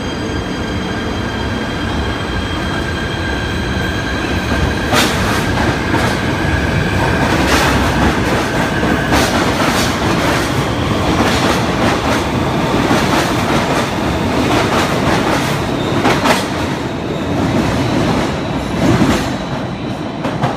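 PATH Kawasaki PA-5 subway train pulling out of the station and passing, rumbling on the rails. A steady high whine from its traction inverter fades out about nine seconds in, and from about five seconds on the wheels clack over rail joints again and again as the cars go by.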